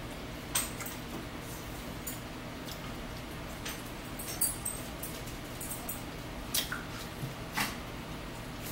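Metal forks clinking and scraping against salad bowls and plates, several short sharp clicks scattered through, with wet chewing of salad between them.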